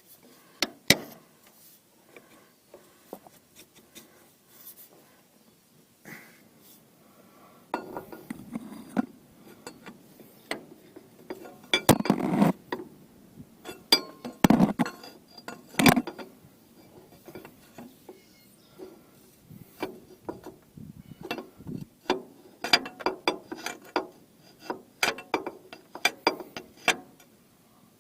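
Hand tools clinking and knocking on steel fittings: wrench work to remove a leaking steel hydraulic line from the underside of a John Deere 410 backhoe. The clinks are irregular and sparse at first, then come thicker after about eight seconds, with the loudest knocks in the middle.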